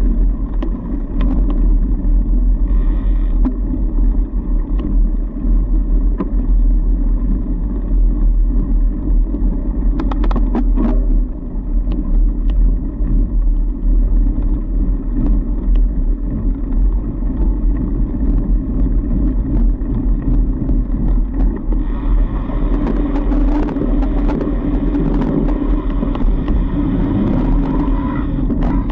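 Fat bike riding along a packed-snow trail, picked up by a camera riding with it: a steady, loud rumble of tyres and riding vibration. There are a few sharp knocks about ten seconds in, and a rougher, buzzier layer joins for the last several seconds.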